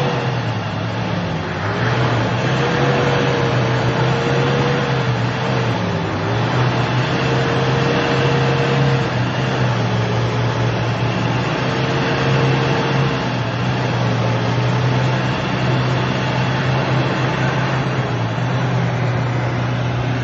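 Toyota Hilux pickup's engine held at high revs, its pitch sagging and picking up again every few seconds, as the stuck pickup spins its wheels in deep mud.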